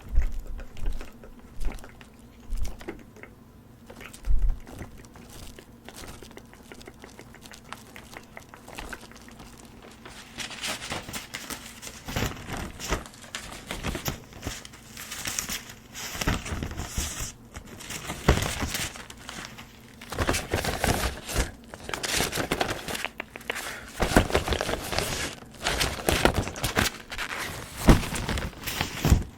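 Close-up crinkling and rustling as something crinkly is handled, after a few soft low taps in the first seconds.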